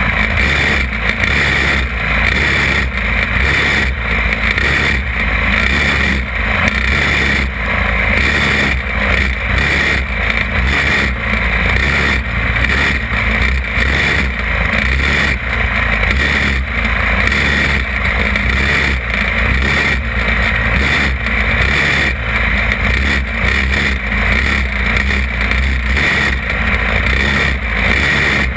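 Champ buggy go-kart engine running hard under race throttle, heard from a camera mounted on the kart. Its loud, continuous sound dips briefly about once a second.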